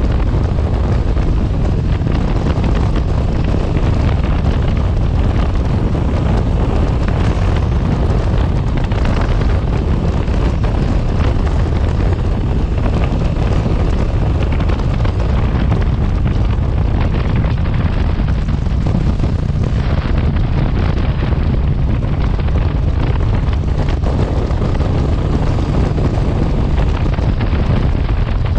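Wind rushing over the microphone of a moving motorcycle, a loud steady rumble with the motorcycle's engine running underneath.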